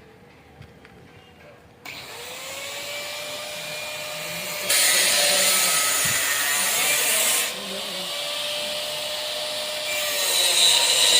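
An electric power tool starts up about two seconds in, its motor rising in pitch and then running steadily. It turns louder and hissier for a few seconds in the middle and again near the end.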